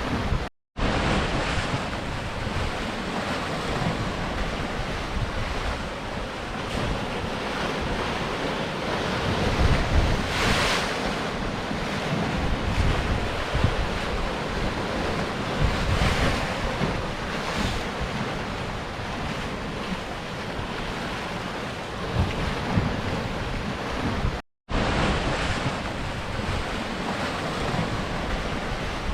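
Sea surf washing against rocks: a continuous rush of water with louder swells about ten seconds in and again around sixteen to eighteen seconds. Twice the sound drops out to silence for a split second.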